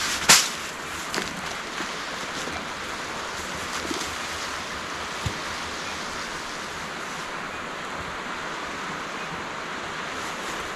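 Steady rushing wind noise, with a sharp knock just after the start and a few faint clicks.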